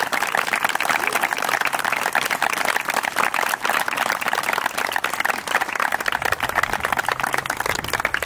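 A crowd of wedding guests applauding, a dense, continuous patter of many hands clapping, easing slightly near the end.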